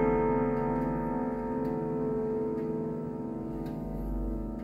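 Chime rods of an Urgos triple-chime grandfather clock ringing and slowly fading after a chime sequence, with the pendulum movement ticking.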